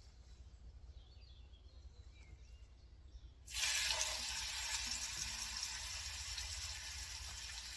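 A seasoned pork neck roast laid into hot fat in a cast-iron Dutch oven over charcoal, starting to sear. After a quiet start, a loud sizzle breaks out suddenly about three and a half seconds in as the meat hits the fat, and it keeps sizzling steadily.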